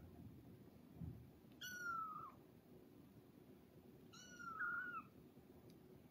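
A kitten meowing twice, short high-pitched cries about two and a half seconds apart.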